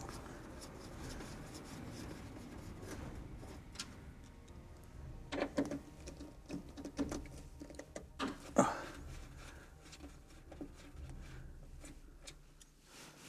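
Hand tools working on a car door: scattered clicks and knocks of a Torx driver and metal parts as the door lock's bolts are undone, over a low steady hum.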